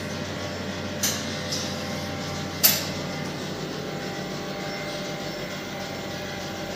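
Steady hum and whir of running laboratory machinery, with two sharp clicks, one about a second in and a louder one about two and a half seconds in.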